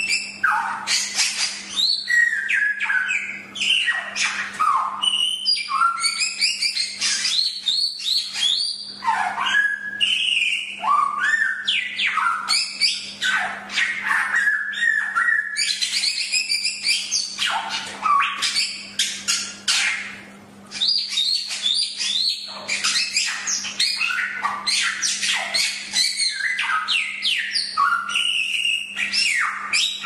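Samyong (golden whistler) singing almost without pause: a fast run of loud whistles, chirps and quick down-slurred notes, with a brief break about two-thirds of the way through. A faint steady low hum runs beneath the song.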